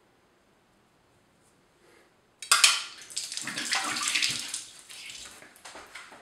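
Water from a tap running and splashing into a sink, starting suddenly about two and a half seconds in and tailing off near the end.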